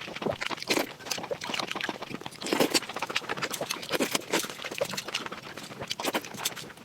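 Close-up mouth sounds of someone eating fatty meat: an irregular run of wet chewing clicks and lip smacks.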